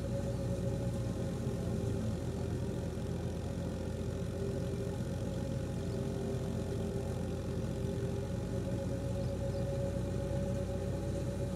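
Tractor-powered wheat thresher running steadily: the tractor engine's drone and the thresher's hum, with a constant high whine on top.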